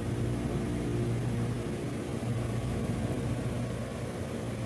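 Steady low hum of running machinery, with a strong low drone and a few even tones above it.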